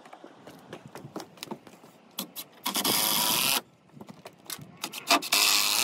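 Cordless drill running in two short bursts of about a second each, one about three seconds in and one near the end, with the pitch of its motor steady under load. Small knocks and clatter come between the bursts.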